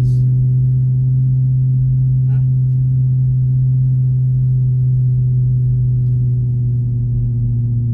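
BMW M3's 4.0-litre V8 with an upgraded exhaust droning steadily at an even cruising speed, one constant low pitch with overtones.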